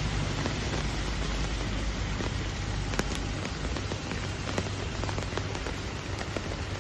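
Heavy rain falling steadily on a wet road, with a low rumble underneath that eases off about halfway through.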